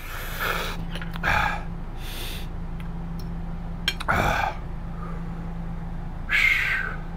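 A man huffing and blowing out air in several hard breaths, from a mouth burning with very spicy food. A quick metallic clink of a fork against a plate comes just before the middle, and a steady low hum runs underneath.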